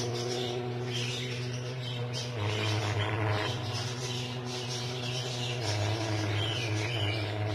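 Birds chirping over a steady low drone, which shifts in pitch a couple of times.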